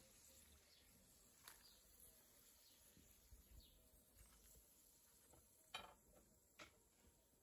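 Very faint: hot frying oil bubbling in a pan as diced potatoes are lifted out with a metal skimmer, with a few sharp clicks, one about a second and a half in and two near the end.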